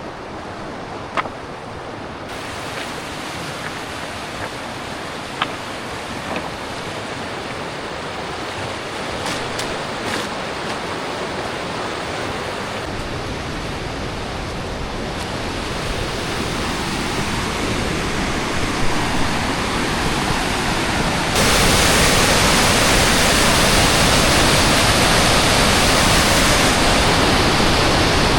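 Waterfall running at shallow winter flow, a steady rush of falling water that grows louder and jumps up sharply about two-thirds of the way through. A few sharp clicks in the first ten seconds.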